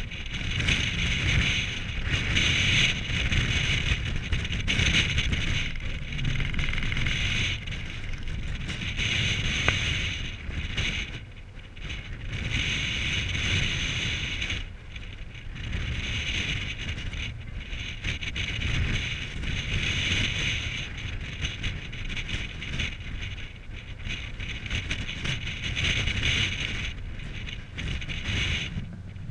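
Wind buffeting the microphone on the open deck of a moving ferry, over a low rumble and a hiss. It rises and falls in gusts every couple of seconds.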